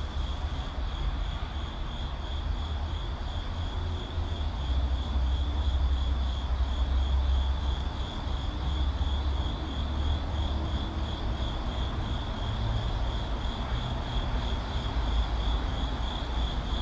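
A steady low rumble under a constant hiss, with a high, rapidly pulsing tone running evenly over it, like a layered ambience track.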